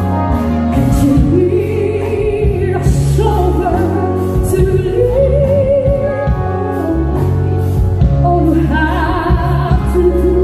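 A woman sings a slow ballad live into a microphone over instrumental backing with a heavy bass line, holding several notes with a wide vibrato.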